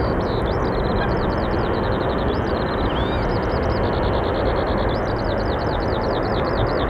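Boeing 777-200ER on final approach with its Rolls-Royce Trent engines, a steady jet noise. Over it a small bird sings in rapid runs of high, quick chirps.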